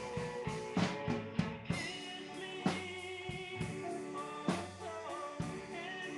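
Rock music with a drum kit playing under held notes.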